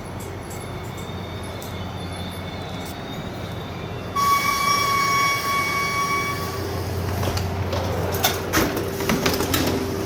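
Train arriving at a station with a steady low rumble. About four seconds in, its horn sounds one steady tone for about two and a half seconds, then a run of sharp clanks and rattles follows as it comes in to stop.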